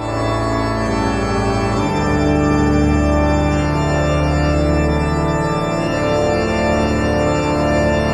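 Outro music of sustained, organ-like chords over a held bass note; the bass changes about two seconds in and again near six seconds.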